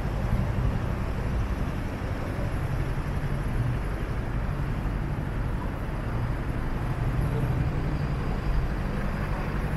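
Steady road traffic noise: a continuous low rumble of passing cars, with no single vehicle or event standing out.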